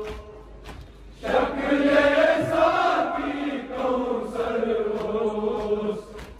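Men chanting a noha, a Shia Muharram lament, in a slow melodic line. The chant starts about a second in and drops away near the end.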